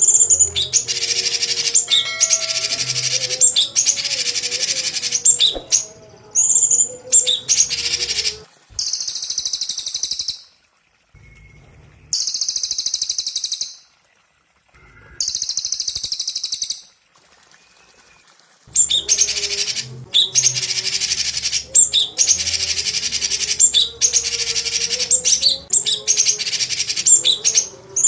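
Bird-song training track of a crested jay (cililin) and a leafbird (cucak cungkok) calling in turn: long, fast, rattling trills of a couple of seconds each, with short gaps between them. Three higher, hissier trills come in the middle, with brief silences between them.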